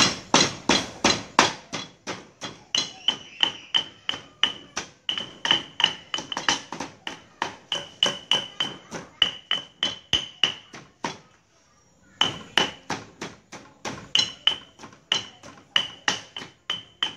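Stone pestle pounding in a stone mortar, crushing ingredients into a curry paste: steady, sharp strokes about three a second, with a short pause about eleven seconds in.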